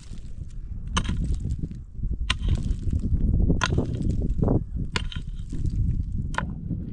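Five sharp strikes, one about every second and a half, over a steady low rumble.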